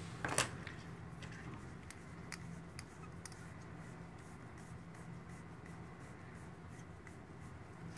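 Faint handling noises of rubber inflating tubing being wound into the grooves of a metal air chuck and the chuck being turned in the hands: a light knock about half a second in, then small clicks and rubbing, over a steady low hum.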